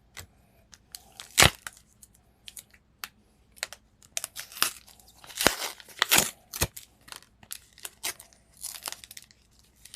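Foil Pokémon booster pack wrapper being crinkled and torn open by hand, in irregular crackles and short rips.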